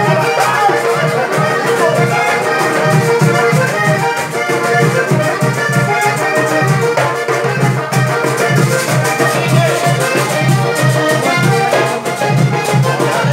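Vallenato-style merengue played live on a button accordion with acoustic guitar and a steady beat, in an instrumental passage without singing.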